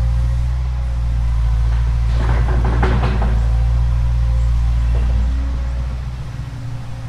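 Excavator's diesel engine running steadily under load, with a burst of crackling and scraping about two to three seconds in. The engine gets quieter near the end.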